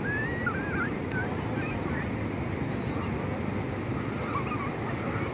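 Steady noise of ocean surf washing over a shallow beach, with wind on the microphone. Faint high-pitched cries of people playing in the water glide up and down over it, several in the first two seconds and a few more around four seconds in.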